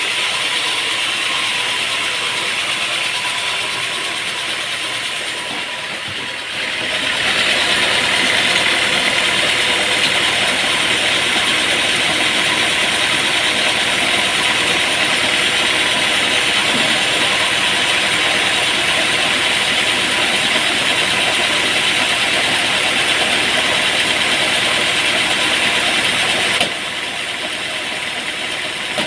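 Sawmill machinery running steadily. About seven seconds in, a louder, higher-pitched cutting noise sets in, consistent with the saw going into the wood, and it cuts off suddenly near the end.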